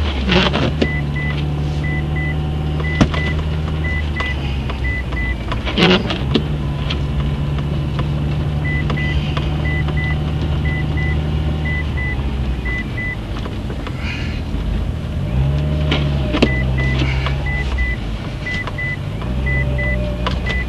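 2004 Mitsubishi Evo VIII's turbocharged four-cylinder engine running while driving, its note shifting up and down in steps. There are a few sharp knocks, and stretches of a high beep repeating in quick pairs.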